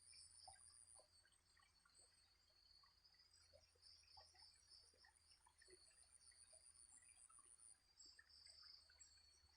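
Faint chorus of night insects such as crickets, a steady high trilling at two pitches, otherwise near silence.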